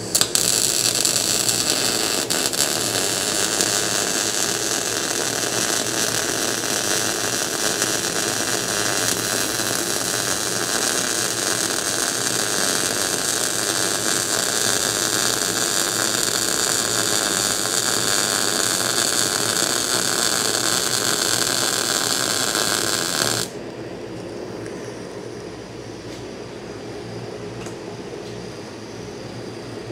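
Miller-Matic 251 MIG welder arc laying a build-up bead on the worn keyway of a steel lathe clutch shaft, a steady hiss that starts at once and cuts off abruptly about 23 seconds in. A quieter steady hum remains after the arc stops.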